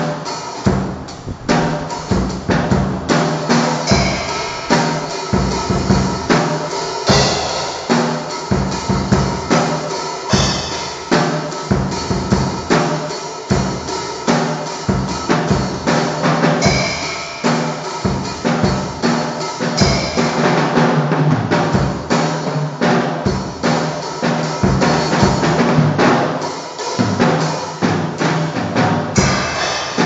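Drum kit played without pause in a busy pattern of bass drum, snare and tom strokes, several hits a second.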